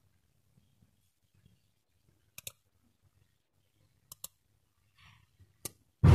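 Computer mouse button clicks: a few sharp clicks, two of them quick press-and-release pairs, at about two and a half, four and five and a half seconds in, then a louder thump at the very end.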